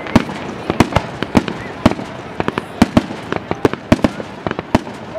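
Aerial fireworks bursting: a rapid, irregular string of sharp bangs, several a second.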